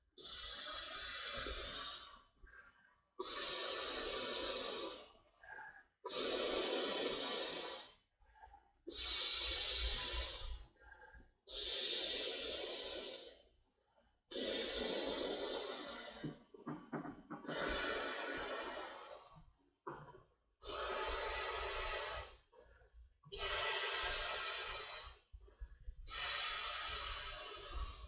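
A man blowing up a silver foil blimp-shaped balloon by mouth: about ten long, forceful exhalations into the valve, each about two seconds long, with short quiet pauses between them as he draws breath.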